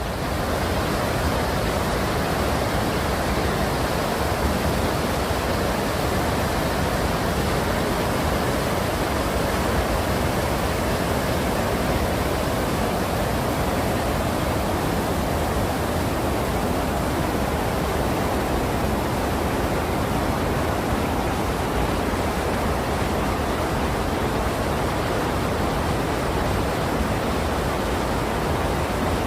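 Mountain valley stream rushing, a steady, even sound of flowing water.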